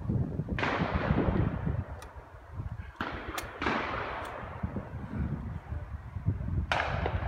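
Shotgun shots, each a sharp report with an echoing tail that fades over about a second: one about half a second in, two close together around three seconds in, and one near the end. A low rumble like wind on the microphone runs underneath.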